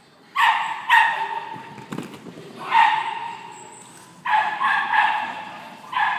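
A dog barking in high-pitched yaps, several bursts about a second or two apart.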